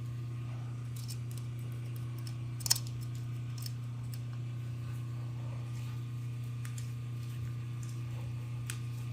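Small metal clicks and ticks from the parts of a miniature steel vault-door lock mechanism being handled and turned, with one sharper click about two and a half seconds in, over a steady low hum.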